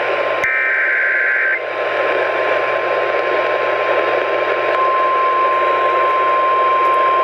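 NOAA Weather Radio alert on a weather radio receiver: a last burst of SAME header data tones ends about a second and a half in. A steady warning alarm tone follows over radio static and hiss, getting louder about five seconds in; it announces the flash flood warning.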